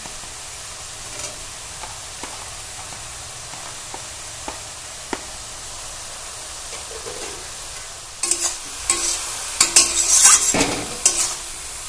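Vegetables sizzling in a wok with a steady low hiss and a few light taps. About eight seconds in, a metal spatula starts stirring and scraping the pan, with irregular clinks.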